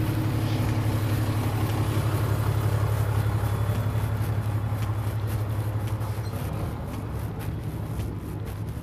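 A large vehicle's engine idling, a steady low drone that grows gradually fainter as the camera moves away from it.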